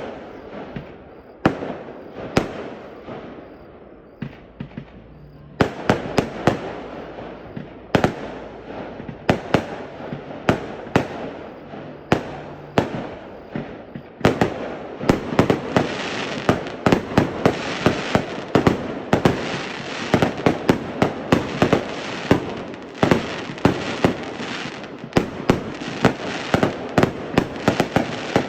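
Fireworks display: shells bursting in sharp bangs, a few spaced ones at first, coming thicker from about six seconds in, and turning into a rapid, almost unbroken barrage from about fourteen seconds in.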